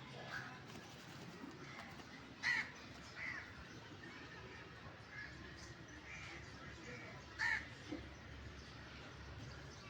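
A bird giving two short loud calls about five seconds apart, each followed by a fainter call, over a faint background.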